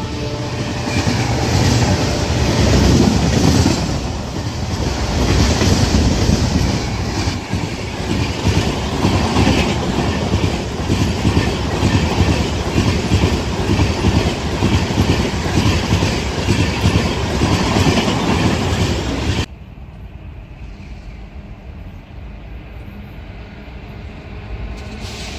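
A train passing at speed, its wheels clattering rapidly over the rail joints in a loud, dense rattle. About three-quarters of the way through the sound cuts off abruptly to a much quieter, steadier rail rumble.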